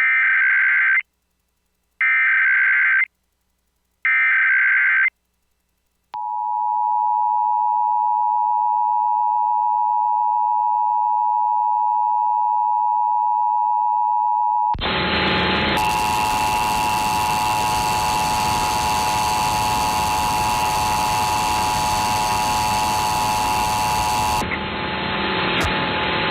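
Emergency Alert System test tones: three one-second bursts of the SAME digital data header, a second apart, then the steady two-tone attention signal. About halfway through, a loud hiss starts and the attention tones continue under it until they fade near the end.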